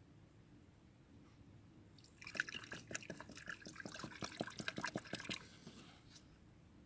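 Water splashing and dripping in short, quick spatters for about three seconds, starting a couple of seconds in.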